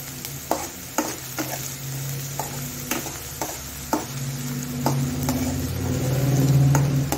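Chopped onions frying in mustard oil in a kadhai: a steady sizzle, with a wooden spatula and a steel ladle stirring and knocking against the pan about ten times. A low hum swells near the end.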